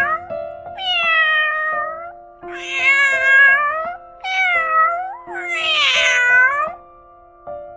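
A domestic cat meowing: four long, drawn-out meows, one after another, over soft background music.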